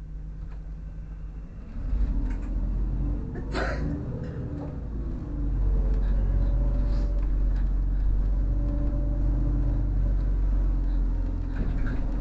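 City bus heard from inside the passenger cabin: the engine runs low for a couple of seconds, then the bus pulls away and the engine works harder, with a steady hum and whine. There is a short sharp noise about three and a half seconds in.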